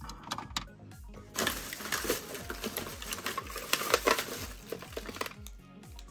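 A thin plastic shopping bag crinkling and rustling as a hand rummages through it. It starts about a second and a half in and dies down near the end, after a few light clicks at the start, over background music.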